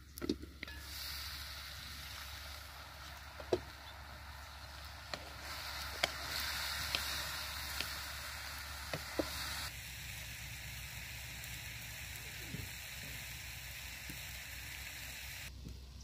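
Mixed vegetables sizzling in a kadai over a wood fire, a steady hiss, with a wooden spatula knocking sharply against the pan about seven times during the stirring.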